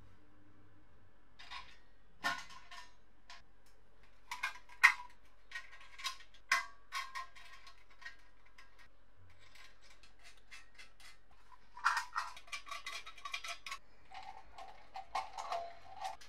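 Small metal parts clinking and tapping against each other and a hard work surface while being handled. The clicks come scattered, with a quick run of them about twelve seconds in.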